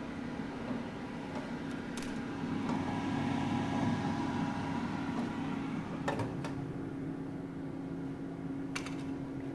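An air fryer oven's fan running on with a steady hum after the oven is switched off, blowing out the heat as a self-protection cooling run. A few sharp clicks as its glass door is handled and shut, about two, six and nine seconds in.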